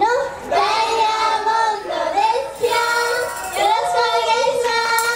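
Several young female voices singing short phrases together through microphones and a PA.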